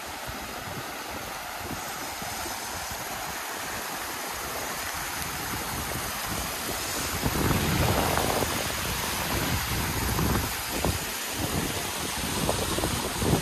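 Shallow stream water rushing steadily over a rock slab at the top of a waterfall. About seven seconds in, wind on the microphone adds a gusty low rumble.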